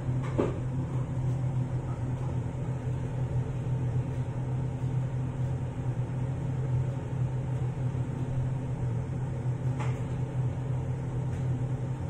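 Smoking machine's fan running with a steady low hum, with a couple of faint brief knocks about half a second in and near ten seconds.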